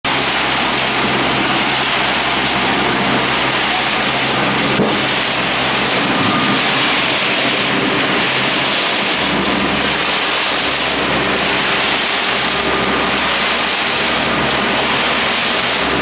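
Atlas RM 1050 mini concrete batching plant running: a steady engine hum under a loud, even rushing noise.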